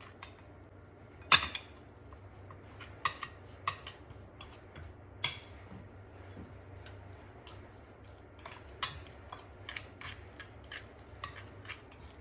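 A utensil clinking and knocking against a bowl as sugar is mixed into warm mashed sweet potato. One sharp knock about a second in, then scattered clinks, and quicker, steadier clicking in the second half.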